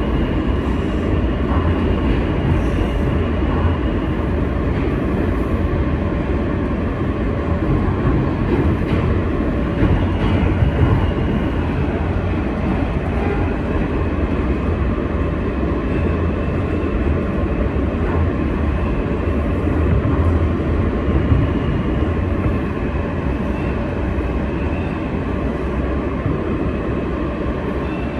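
Kawasaki R160B subway car with Alstom propulsion running on the track: a steady, loud rumble with a faint steady whine over it.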